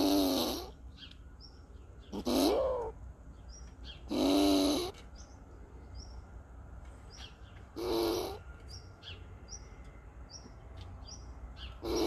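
Eurasian red squirrel giving loud, hoarse, drawn-out calls, each about half a second to a second long, repeated every two to four seconds: a threat call aimed at a bird. Faint short high chirps sound between the calls.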